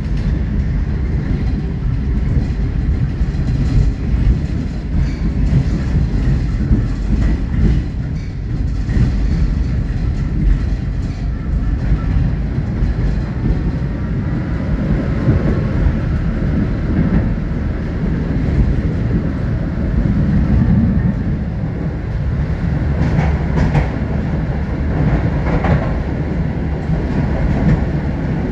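Moderus Alfa HF07DC low-floor tram running along its line, its wheels rumbling steadily on the rails. A faint rising whine comes about halfway through, and a few sharp clacks come near the end.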